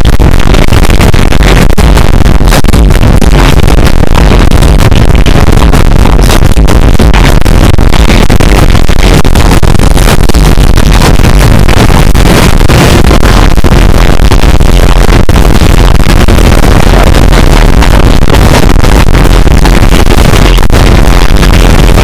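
Fireworks-show music blasting from nearby loudspeakers, so loud that the recording is overloaded: a constant distorted, clipped wall of sound with heavy bass and no let-up.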